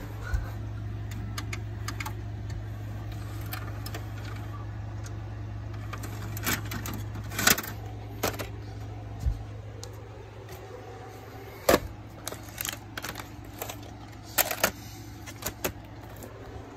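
A VHS cassette and its plastic case being handled: a scatter of sharp plastic clicks and clatters, loudest about halfway through and in the last few seconds, over a low steady hum that fades out past the middle.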